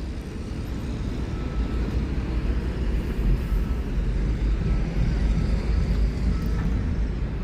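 Steady low rumbling background noise with no clear events, with faint short high beeps repeating every second or so.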